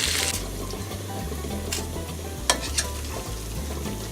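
Chicken pieces shallow-frying in a little oil in a pan, sizzling, with a few clicks of a utensil against the pan. The sizzle drops sharply to a softer level a moment in.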